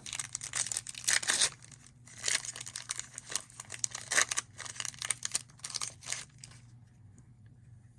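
Foil trading-card pack wrappers being torn open and crinkled, an irregular string of rustling, tearing bursts that thin out in the last second or two.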